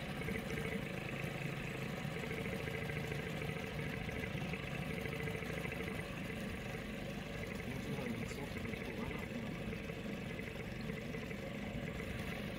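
Small boat's outboard motor running steadily at low speed.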